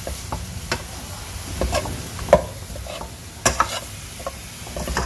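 Spatula scraping and knocking against a nonstick pan at irregular intervals while fish pieces fry in a green herb paste, with a light sizzle underneath; the loudest knock comes about halfway through.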